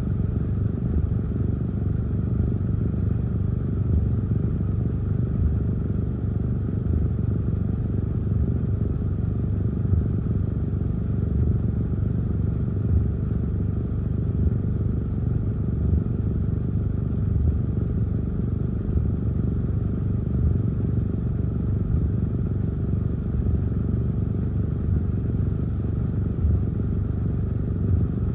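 Steady low rumble of wind and heavy rain on a parked car, heard inside the cabin, with short irregular thumps throughout.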